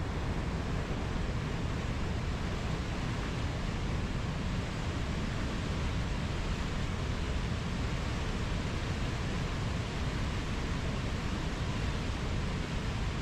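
Waterfall: water falling and rushing in a steady, unbroken roar of noise, deepest at the low end.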